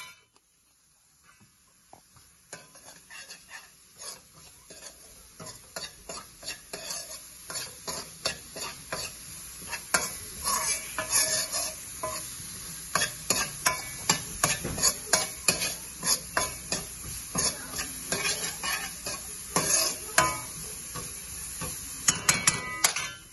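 Diced vegetables sizzling in oil in a frying pan while a spoon stirs them, scraping and knocking against the pan two or three times a second. The stirring starts quietly, grows louder over the first several seconds and stops suddenly near the end.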